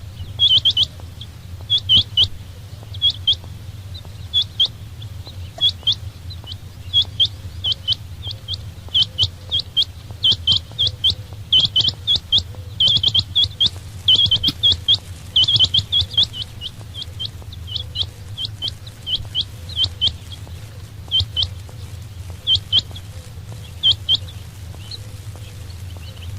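Quail (chinga batair) calling: short, high chirping notes in quick pairs and triplets, repeated over and over, thinning out near the end. A steady low hum runs underneath.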